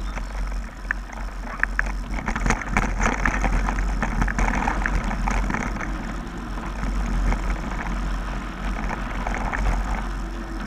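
Wind rumbling on the microphone while a bike rolls fast down a dirt trail, with a constant rattle and scattered clicks and knocks over the bumps.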